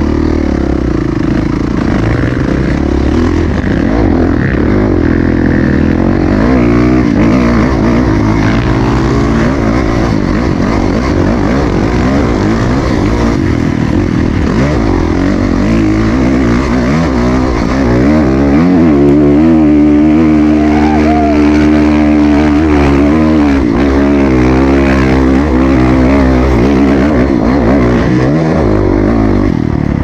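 Dirt bike engine running under a changing throttle while being ridden off-road, its pitch rising and falling, loudest about two-thirds of the way through.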